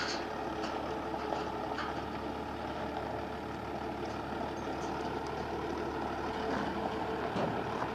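Turbo-diesel truck engine idling: a steady, even hum.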